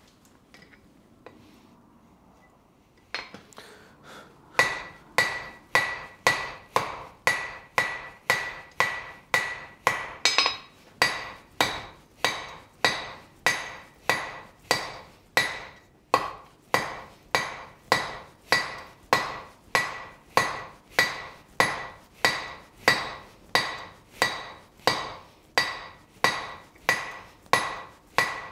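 Hand hammer striking a red-hot steel bar on an anvil, drawing out a long taper. After a quiet start, steady blows begin about four seconds in, a little under two a second, each with a short metallic ring.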